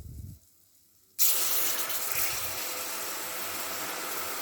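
Milk poured into a hot pan of ghee-roasted gram flour and nuts. The hot fat sets off a loud, steady hiss that starts suddenly about a second in.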